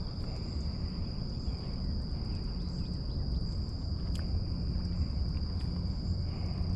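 Insects trilling steadily in one high, even tone over a continuous low rumble of background noise, with a few faint ticks.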